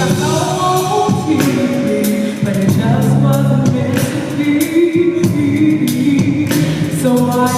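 Gospel music: singing over a band accompaniment with frequent drum and cymbal hits.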